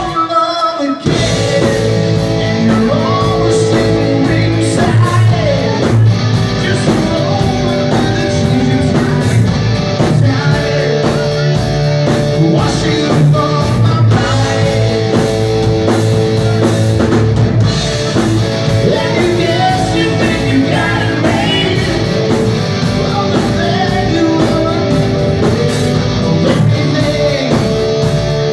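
Rock music with singing, guitar and a steady drum beat, with a short break just after the start.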